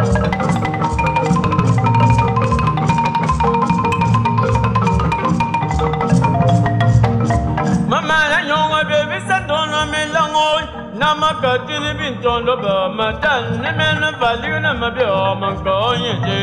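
Wooden xylophone and drums playing a fast, even rhythm of mallet strikes over a low drum pulse. About eight seconds in, the sound changes abruptly to choir voices singing over lighter percussion.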